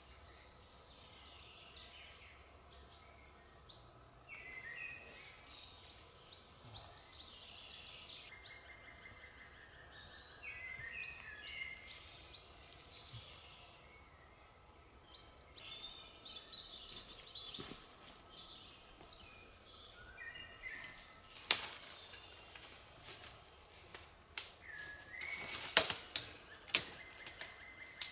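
Songbirds singing, with repeated short phrases of quick high notes. Over the last few seconds come a series of sharp snaps or cracks, louder than the birdsong.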